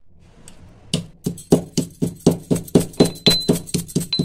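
Steel pestle pounding green cardamom pods in a steel mortar, starting about a second in and going at about four strikes a second. Some strikes leave a high metallic ring.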